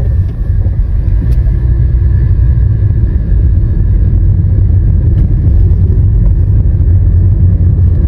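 Steady low rumble of a car's engine and tyres, heard from inside the cabin while driving slowly along a paved street.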